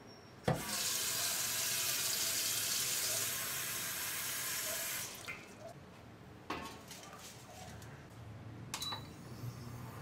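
Kitchen tap running water into a stainless steel pot for about four and a half seconds, starting with a clank and shutting off. The pot is then set down on an induction cooker with a knock, followed by a click and a short beep from the cooker's controls.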